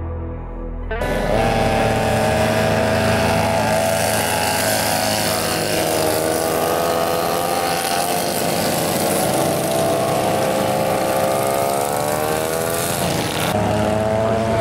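Brief soft music, then from about a second in the small engines of several vintage racing karts running hard, their pitch rising and falling as they accelerate and lift through the corners. The sound changes abruptly near the end.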